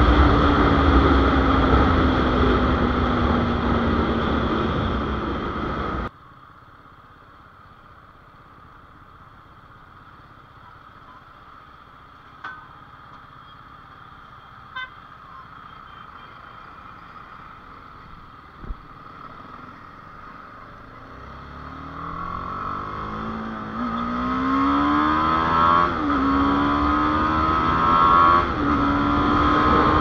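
Motorcycle ride heard through an action camera's built-in microphone. It opens with heavy wind rush and the engine note falling as the bike slows, then cuts suddenly to a much quieter stretch in stopped traffic with a few short traffic sounds, among them a brief horn beep. Near the end the engine pulls away, its pitch climbing through the gears and dipping at each shift while the wind rush builds again.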